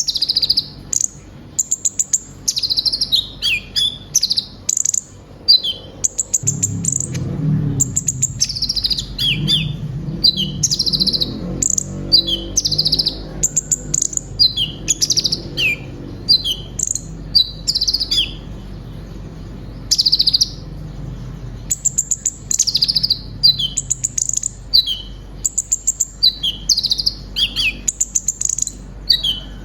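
Kolibri ninja sunbird singing a long, busy song of high chirps, rapid trills and quick sweeping notes, broken by short pauses. The song is packed with phrases mimicked from other birds.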